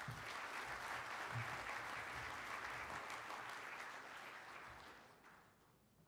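Audience applauding, the clapping fading away about five seconds in.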